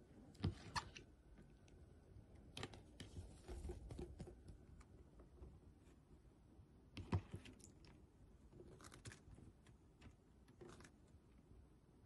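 Faint, scattered small splashes and clicks of water in a shallow bowl as a bathing small parrot shifts its wet wings and body, with a few louder flicks about half a second in and around seven seconds.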